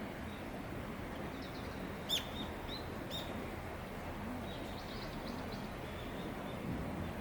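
Small birds chirping in short, sharp high calls, in two brief clusters, over a steady low outdoor background noise.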